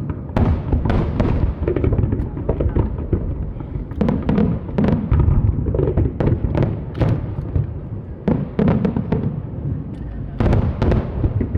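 Aerial firework shells bursting in rapid succession, with deep booms and sharp cracks overlapping one another, and a heavier cluster of bangs near the end.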